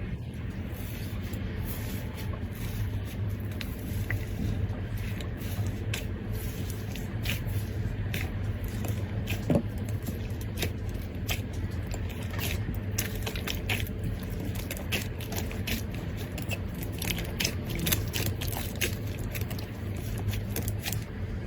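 Slime being worked by hand: many irregular little crackles and pops as it is squished and pulled, over a steady low hum.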